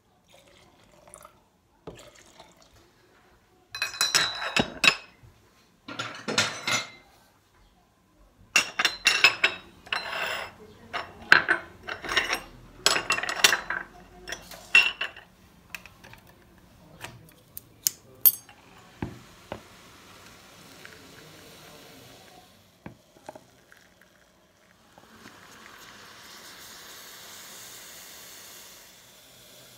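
Porcelain Turkish coffee cups and saucers clinking and clattering as they are handled and set down, in several bursts. Near the end, a soft steady hiss as Turkish coffee is poured from an electric coffee pot into a cup.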